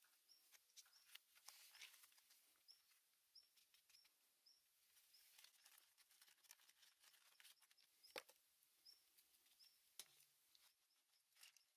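Near silence, with scattered faint clicks and a faint high chirp repeating about every half second; one louder click a little past 8 seconds.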